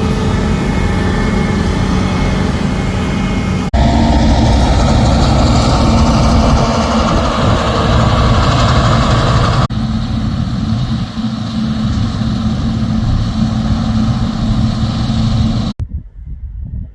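Claas Lexion combine harvester running steadily in the field, heard across several cut-together shots, its level and tone changing abruptly at each cut. After the last cut, about a second before the end, it is much quieter.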